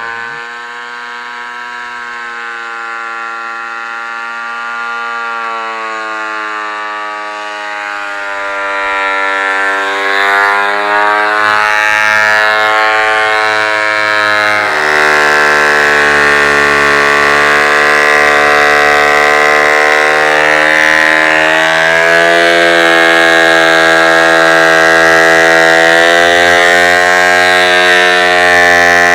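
Ridgid thickness planer running with a loud, steady, wavering whine; it gets louder and rougher about halfway through as a rough-sawn plank passes under the cutterhead, planing off chainsaw marks.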